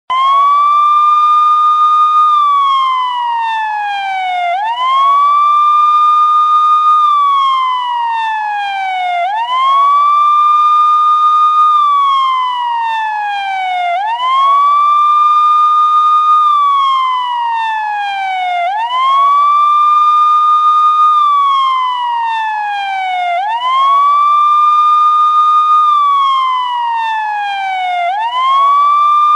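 Police siren sounding a slow wail, loud and clean. Each cycle climbs quickly to a high pitch, holds there for about two seconds, then slides steadily down, repeating roughly every five seconds.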